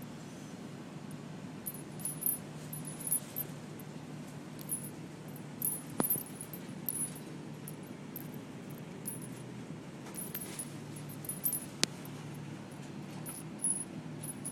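Light metallic jingling on and off over a steady low hum, with two sharp clicks about six seconds apart.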